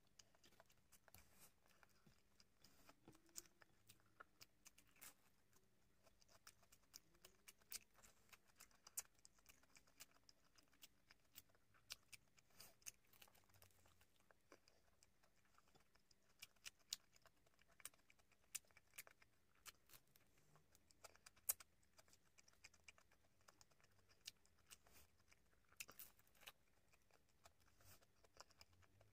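Quiet close-up eating sounds as a fried fish spring roll and rice are eaten by hand: chewing, with many scattered sharp mouth clicks and smacks. A faint steady hum sits underneath.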